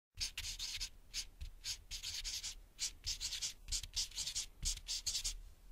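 Pen scratching across paper in short, irregular strokes, a few a second, as in writing out words by hand.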